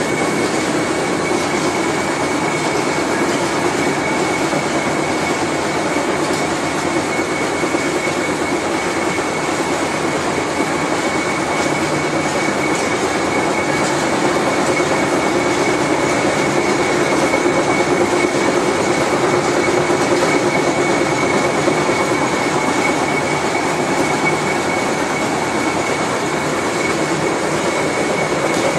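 Large Fitchburg horizontal spline and pinion hobbing machine running, a steady mechanical noise with a constant high-pitched whine.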